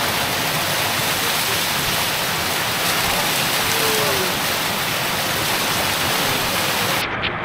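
Thermal-spring water pouring down from waterfall spouts in a steady rush. The rush cuts off abruptly near the end.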